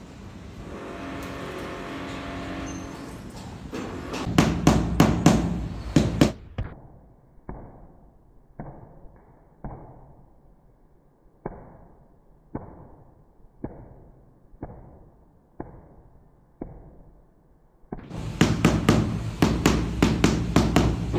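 Rubber mallet tapping a large porcelain floor tile to bed it into the mortar. Quick runs of knocks come about four seconds in and again near the end. Between them are slower, muffled single knocks about once a second.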